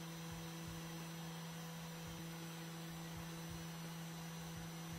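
Stock 400 W spindle motor of a desktop CNC router running at its top speed of 10,000 RPM: a steady hum with a light hiss.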